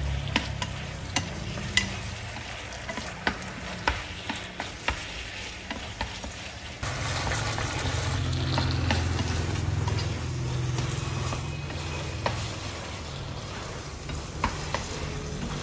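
Egg noodles stir-frying in a nonstick frying pan: a steady sizzle with frequent light taps and scrapes of wooden chopsticks against the pan. A low steady hum joins about halfway through.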